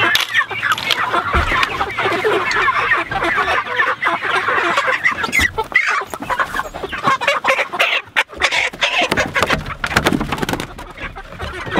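A flock of Cornish Cross meat chickens clucking and squawking steadily as they are caught and handled, with frequent wing flaps and brief clatters.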